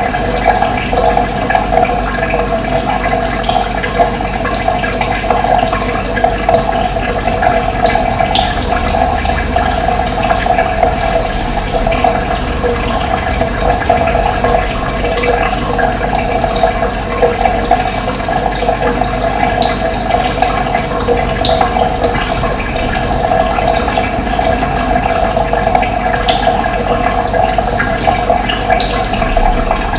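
Running water flowing steadily and loudly, with a few faint, short, high bird chirps over it now and then.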